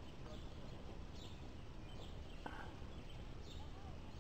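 Outdoor lake ambience: a low steady rumble with faint high chirps repeating about once a second, and a single soft tap about halfway through.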